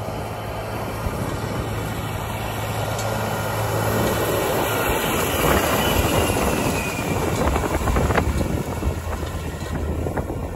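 John Deere tractor's diesel engine running under load as it pulls a tillage implement through corn stalks, growing louder as it comes close. Around the middle a faint high whine slides down in pitch.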